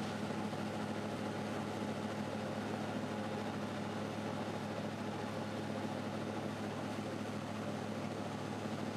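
Passenger ferry's engines running with a steady low drone, under an even hiss of wind and water rushing past the hull.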